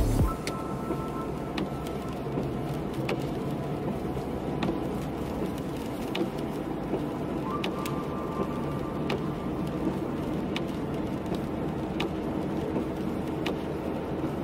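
A car driving on a wet road in rain: steady road and tyre hiss with scattered sharp raindrop ticks.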